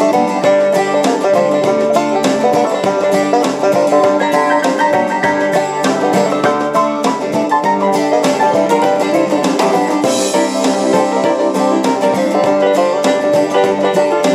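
Plucked-string music playing through the Sangean ATS-909X2 radio's speaker, received on FM stereo from a low-power transmitter, with a quick run of picked notes throughout.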